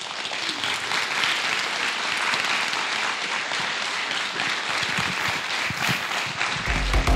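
Theatre audience applauding, a dense steady clapping, with music coming in near the end.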